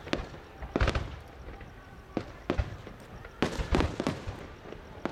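Fireworks going off in a series of sharp bangs and cracks: a few about a second in, a couple more around two to two and a half seconds, and a quick run of bangs between three and a half and four seconds.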